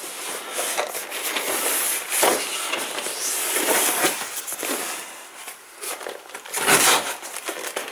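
Packing tape being slit and torn off a cardboard box, with scraping and rustling of the box being handled; a louder scrape or tear comes near the end.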